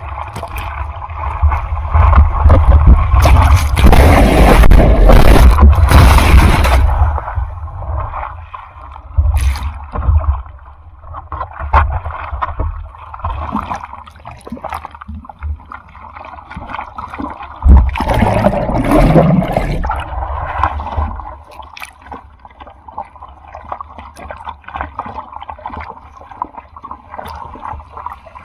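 Typhoon-driven surf breaking close by: a loud wash with a deep rumble from about two to seven seconds in, then water sloshing and gurgling, with another surge of breaking water a little past the middle.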